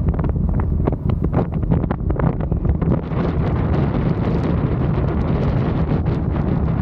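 Heavy wind buffeting on the camera microphone while riding a CFMOTO 450SR motorcycle, with the engine running steadily underneath, crackling in short gusts over the first few seconds.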